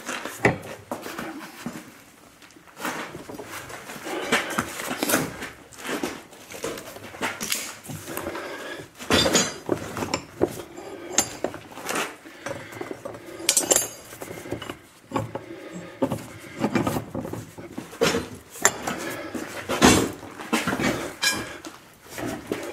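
Half-inch steel rebar clanking and scraping against a steel bench vise as the drag hook is bent and worked by hand: irregular metal clinks and knocks.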